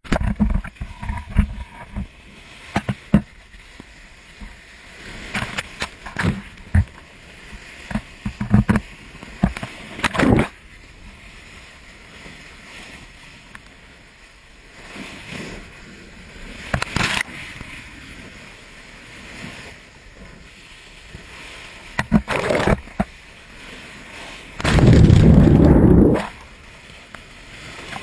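Seawater splashing and surging where lava pours into the ocean, in irregular sudden splashes of uneven loudness over a steady wash of water. Near the end comes one loud, low rushing burst lasting about a second.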